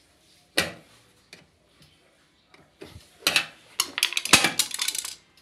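Hand tools knocking and clattering: a sharp knock about half a second in, then a quick run of clicks and clatters from about three seconds, as a screwdriver is worked at the washer dryer's door frame and laid down on the tiled floor.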